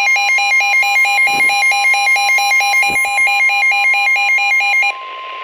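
NOAA Weather Radio warning alarm: a steady single-pitch tone, overlaid by a loud electronic alert beeping rapidly back and forth between two pitches. The alternating beeping stops a little before the end, leaving the steady tone alone. It signals that a new warning, here a severe thunderstorm warning, is about to be broadcast.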